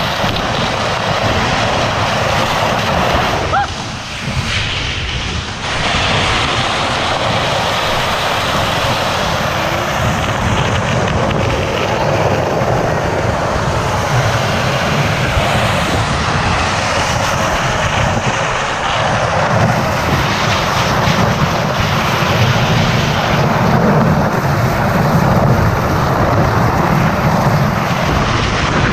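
A vehicle driving, heard from on board: steady engine rumble and travel noise, dipping briefly about four seconds in.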